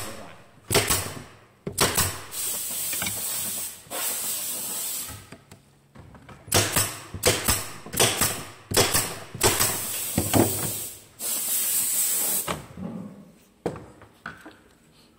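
Sharp knocks and clicks from wooden beehive frames being assembled, with several long bursts of hissing between them.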